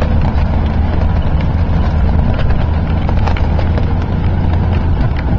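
Jeep CJ5 driving slowly on a rough dirt trail: a steady low engine and drivetrain drone, with frequent short clicks and knocks from the body rattling over the bumps.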